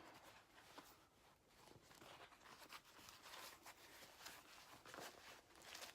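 Near silence with faint handling noises: scattered small clicks and light rustles of hand tools being picked up and moved.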